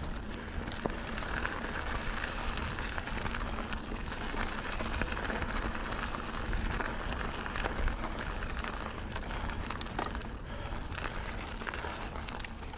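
Santa Cruz Bronson mountain bike rolling along a dirt trail: a steady rush of tyre noise over a low wind rumble on the microphone, with scattered sharp clicks and ticks from the trail surface and the bike.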